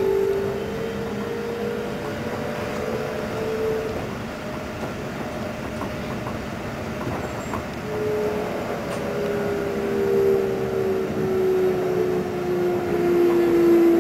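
Keikyu 600 series electric train running, heard from inside the front car: a steady rolling rumble with a humming motor tone that falls slowly in pitch. The tone fades out about four seconds in and comes back about eight seconds in, and the noise grows louder near the end.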